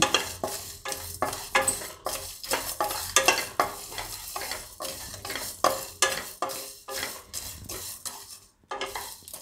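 Spatula stirring and scraping whole spices (coriander seeds, cumin, peppercorns, cinnamon sticks, star anise) as they dry-roast in a kadai with no oil, the seeds rustling and rattling against the pan with each stroke. Quick repeated strokes, about two to three a second, with a short pause near the end.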